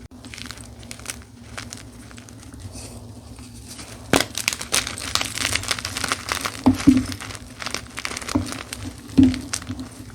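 Dyed gym chalk being crushed by hand, giving crumbly crackling and crunching. It is soft at first, then turns louder and denser about four seconds in, with a couple of heavier thuds as the chalk gives way.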